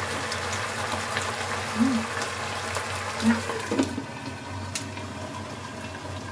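Chicken and bell-pepper sauce bubbling in a wok on a gas burner. A metal lid is set on about two-thirds of the way through with a short clank, and the bubbling is more muffled after that.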